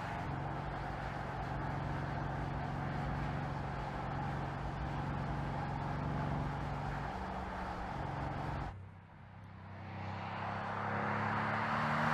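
Mercedes-AMG GLC 63 S's twin-turbo V8 running steadily under way. After an abrupt cut about nine seconds in, the SUV approaches, growing louder, its engine note rising.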